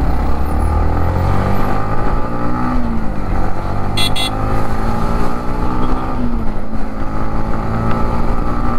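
Motorcycle engine running on the move, its pitch rising and falling with the throttle a few times. Two short high beeps sound a little after four seconds in.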